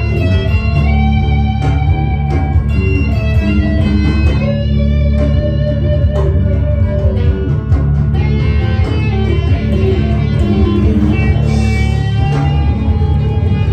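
Ibanez electric guitar playing a lead line of held and bent notes over a steady low bass part.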